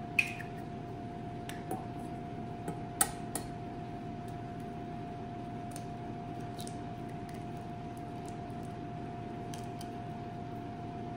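Eggs tapped and cracked against the rim of a stainless steel saucepan: a few sharp clicks in the first few seconds, two of them louder with a brief metallic ring, then faint shell ticks as the yolks are separated from the whites. A steady hum runs underneath.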